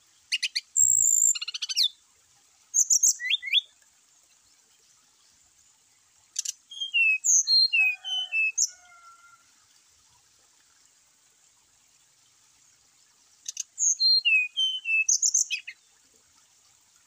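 Brown-chested jungle flycatcher singing: four short phrases of sharp, high notes and quick sliding whistles, with pauses of a few seconds between them.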